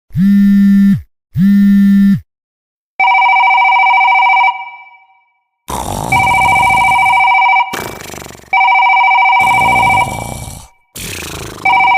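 Telephone ringing: two short low buzzes, then an electronic ring repeating in bursts of about a second and a half.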